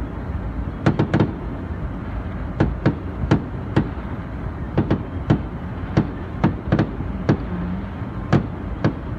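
Fireworks from a public display: small aerial shells bursting in a quick, irregular string of sharp bangs, at times several a second. They are heard from inside a car over a steady low rumble.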